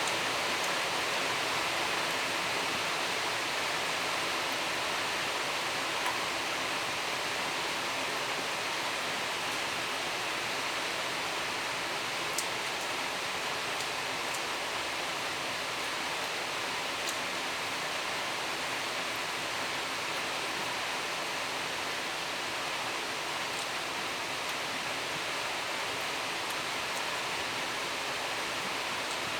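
A steady, even hiss with no change in level, broken by a few faint clicks.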